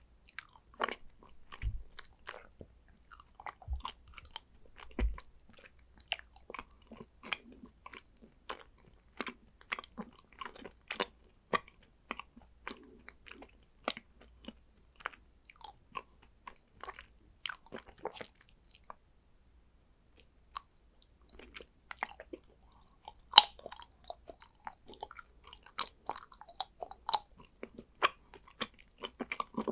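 Close-miked chewing and crunching of condensed-milk chocolate: a steady run of crisp, sharp clicks and snaps, with a short pause about two-thirds of the way through and one loud snap soon after. A few low thumps come in the first few seconds.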